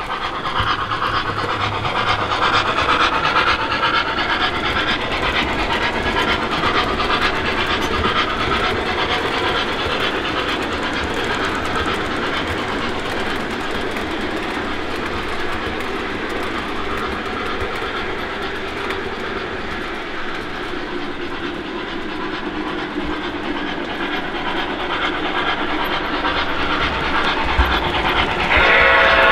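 O gauge model steam locomotive running on track, a steady rolling and running noise with its onboard sound system, with a whistle sounding right at the end.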